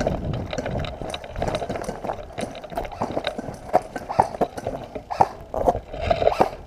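Irregular footsteps and gear knocks of an airsoft player on the move, a few sharp thuds and clicks a second.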